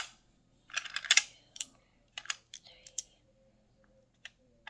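Small fidget toys being handled and set down on a hard surface: a short clatter about a second in, then scattered sharp clicks.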